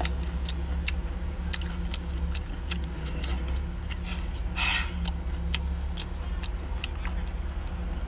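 Close-up eating sounds as meat is picked from a sea snail shell with chopsticks and eaten: many short wet clicks and smacks, with a brief slurp about four and a half seconds in. A steady low hum runs underneath.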